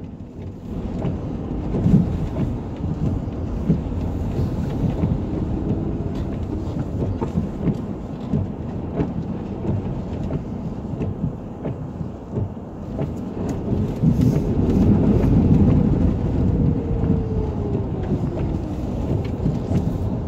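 In-cabin rumble of a 2007 Suzuki Escudo driving over a rough gravel 4WD track: a steady low drone of engine and tyres with scattered knocks and rattles from the bumps. The engine note rises and then falls about two-thirds of the way through.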